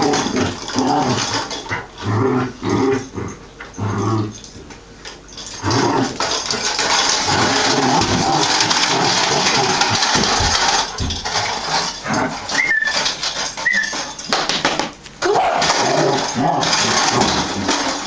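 Collie puppy playing with a cat toy: dog noises with scuffling and knocking of the toy, and two short high chirps about two-thirds of the way through.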